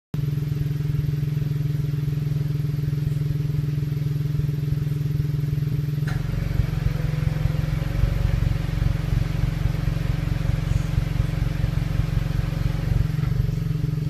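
A car's aftermarket dual-tip exhaust muffler at idle, a steady engine note. About six seconds in, the note turns rougher and more throbbing.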